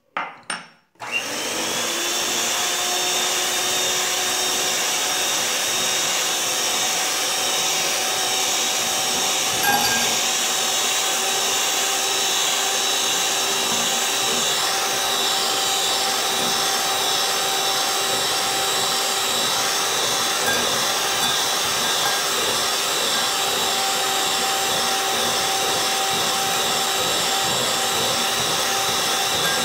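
Electric hand mixer starting up about a second in and running at a steady whine, its twin beaters whipping egg whites toward stiff peaks. One brief knock about ten seconds in.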